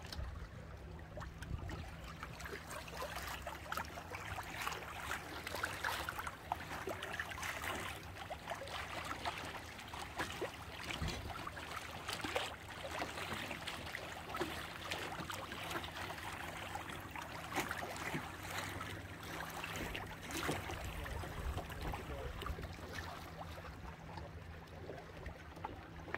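Water rushing and splashing along a boat's hull in a strong current: a continuous busy, crackling wash with small splashes throughout.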